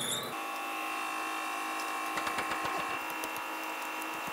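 Hitachi Seiki turret lathe running as a 1-inch drill finishes its hole in a steel bushing blank: a steady machine whine of several tones, with a few light ticks about two to three seconds in. The sound stops near the end as the spindle comes to rest.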